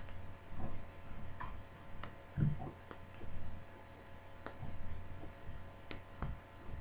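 Irregular light clicks and taps of tweezers working at plastic laptop-lid parts while the lid magnet is prised out, with a few soft knocks, over a faint steady hum.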